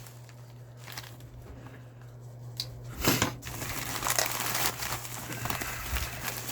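Shipping packaging being handled and opened by hand: crinkling and rustling, with a loud sudden crackle a little after halfway and busier rustling after it.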